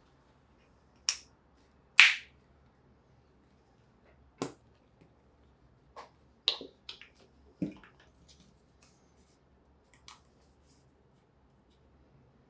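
Sharp, separate clicks and taps of small hard objects being handled and set down on a work surface, about eight in all at irregular intervals, the loudest about two seconds in and a close pair near the middle.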